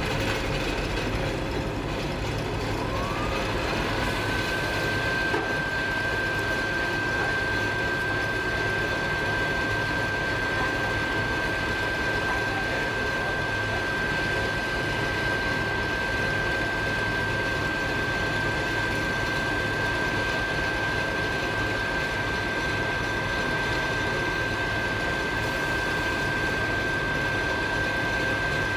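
Railway machinery running steadily with a low hum; about three seconds in, a whine rises in pitch and then holds at one steady note.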